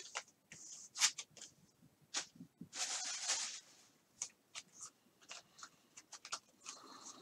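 Football trading cards being flipped and slid through the hands one by one: a run of light clicks and taps, with a longer papery swish about three seconds in.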